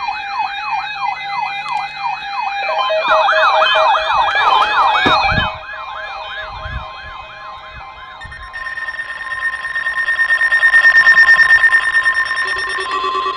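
Electronic sirens wailing in a fast yelp, about three sweeps a second, with a second siren joining about three seconds in. After about eight seconds the sweeps give way to a steady, pulsing electronic alarm tone.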